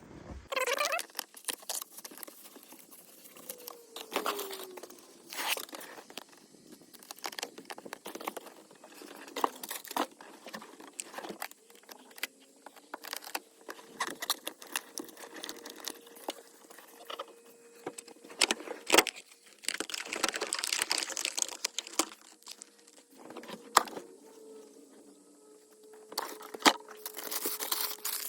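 Sheets of sound-deadening mat being handled and fitted by hand: crinkling and tearing, with scattered taps and knocks. Longer stretches of tearing or crinkling come about twenty seconds in and again near the end.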